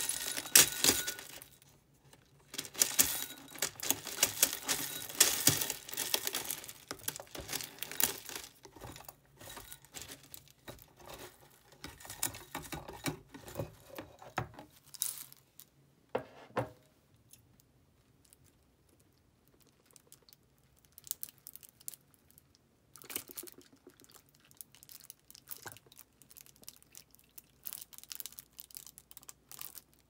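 Dry cereal (cornflakes and chocolate cereal balls) rattling out of a knob-turned countertop dispenser into a ceramic bowl. It comes as dense crackling pattering, with a short pause about two seconds in, and stops about fifteen seconds in. After that there are only scattered soft clicks and rustles.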